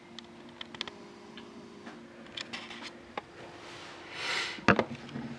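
Handling noise: scattered light clicks over a faint steady hum, a short rustling swell about four seconds in, then one sharp knock near the end.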